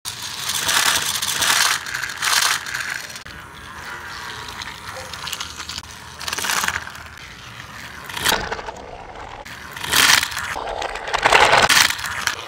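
Battery-powered Trackmaster Thomas toy engine running along plastic track, its small motor and gears whirring and its wheels rattling. It swells louder and fades back several times as it goes.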